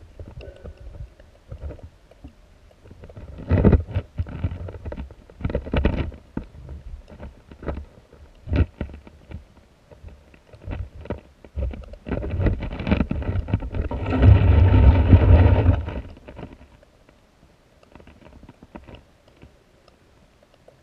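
River water moving around a submerged camera, heard muffled through it: irregular rushes and knocks, loudest in a swell about two-thirds of the way through, then dying down near the end.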